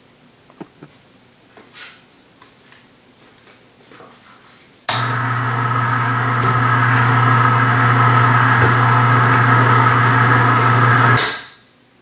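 Electric ceiling hoist motor running with a loud steady hum for about six seconds as it lifts a hanging rack up to the ceiling, switching on abruptly about five seconds in and cutting off shortly before the end. Before it starts there are a few light clicks and knocks.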